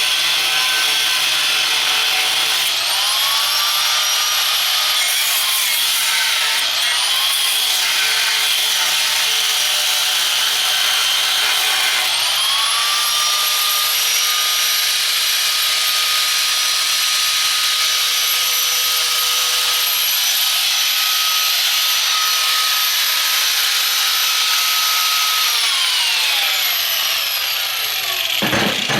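Angle grinder working steel pallet forks: the motor spins up with a rising whine about three seconds in and again about twelve seconds in, runs steadily with the grinding noise of the disc on the metal, then winds down near the end.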